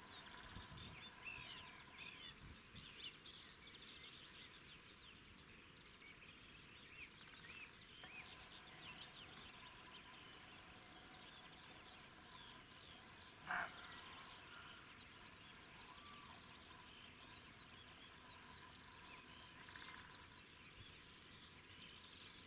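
Faint songbirds chirping and trilling in the background, and about halfway through a single short, loud bark of a roe buck.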